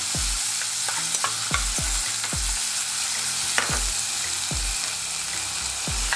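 Govinda rice frying in ghee in a kadai, sizzling steadily while it is stirred, with a sharp scrape of the stirring stroke against the pan every half second to a second.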